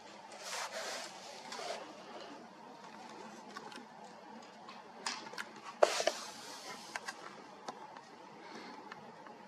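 Faint rustling and scraping, then scattered small clicks and knocks, the loudest of them about six seconds in.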